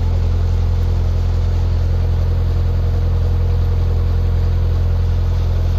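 A narrowboat's diesel engine running steadily while cruising: an even, unbroken low drone with a faint steady hum above it.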